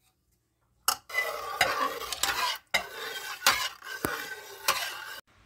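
Steel ladle stirring and ladling broth with soaked lentils and barley in a pressure cooker pot: liquid swishing and pouring, with a few sharp clinks of the ladle against the metal. It starts about a second in, after a silent moment.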